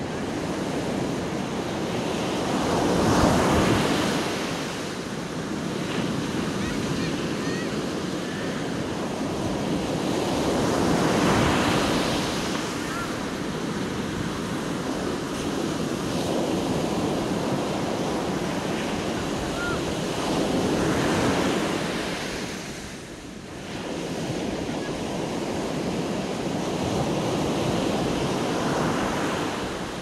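Sea surf breaking and washing up a sandy beach, the rush of water swelling and easing about four times, roughly every eight seconds.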